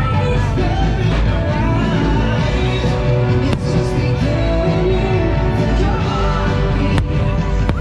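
Loud fireworks-show soundtrack music with some singing, played over outdoor loudspeakers, broken by a few sharp cracks about three and a half seconds in and twice near the end.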